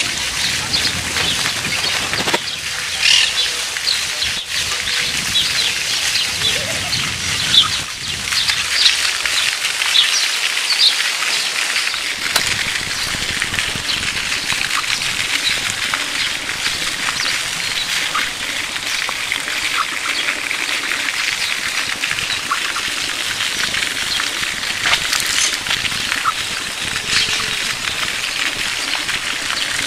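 A chorus of small birds chirping in the trees: many short high chirps over a steady wash of birdsong, thickest in the first ten seconds or so.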